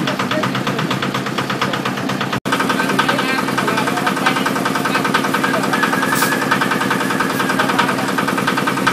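A small engine running steadily, with rapid, even pulsing; the sound drops out for an instant about two and a half seconds in.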